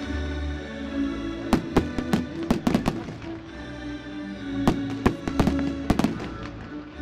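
Fireworks going off in clusters of sharp cracks, about a second and a half in, again around two and a half seconds, and a longer run near five to six seconds, over steady music from the display's soundtrack.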